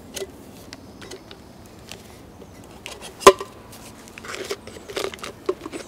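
Jetboil cooker parts being handled and fitted together: light clicks and knocks of the cup and bottom cover, with one sharp click about three seconds in and a brief rustle after it.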